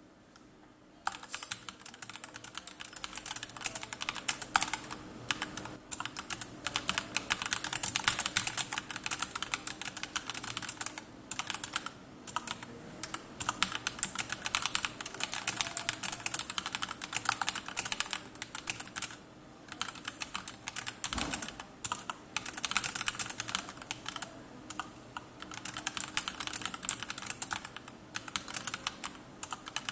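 Typing on a Tecware Phantom TKL mechanical keyboard fitted with Akko CS Matcha Green switches and SA profile doubleshot PBT keycaps. The keystrokes come in a dense, continuous run that starts about a second in, with a brief pause about two-thirds of the way through.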